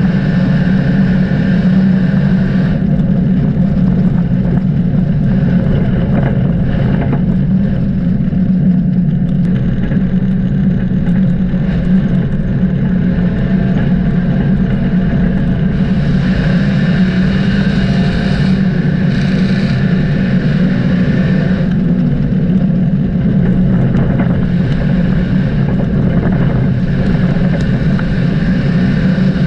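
Dirt track race car engine running at steady speed, a loud, constant low drone with little change in pitch.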